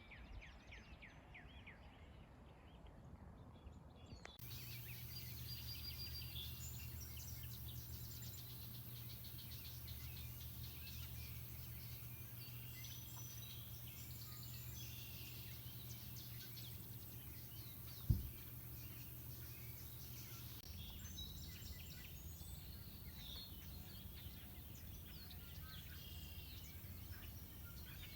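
Outdoor ambience with many small birds chirping and calling throughout. A steady low hum sets in about four seconds in and stops about two-thirds of the way through. A single sharp knock about eighteen seconds in is the loudest sound.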